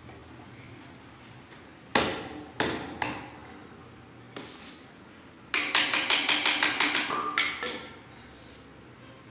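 Hammer tapping an aluminium G-profile handle onto the top edge of a kitchen drawer front. Three separate knocks come first, then a quick run of about ten taps over two seconds, with a metallic ring.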